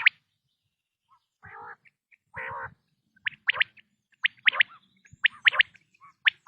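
Male common quail calling. Two low, rough notes come first, then its sharp three-note 'wet-my-lips' phrase three times, about once a second, with a fourth beginning at the end.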